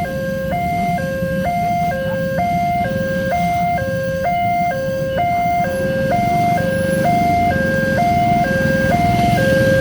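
Railway level-crossing warning siren sounding a loud two-tone electronic alarm, switching between a higher and a lower tone about twice a second, over a steady low rumble.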